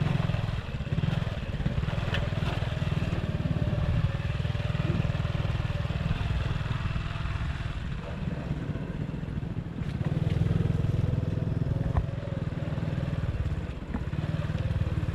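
Motorcycle engine running steadily while being ridden, briefly easing off and picking up again partway through, with a couple of sharp clicks near the end.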